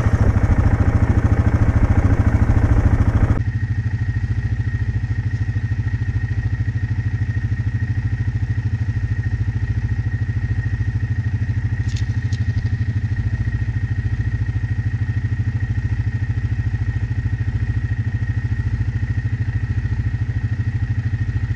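A small vehicle engine running steadily. It is louder for the first few seconds while riding, then settles into a steady, slightly quieter run with a faint constant high whine.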